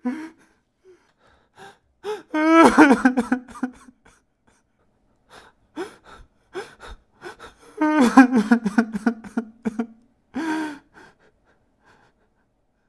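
A person crying: two long sobbing cries, about two seconds in and about eight seconds in, with short gasping breaths between them.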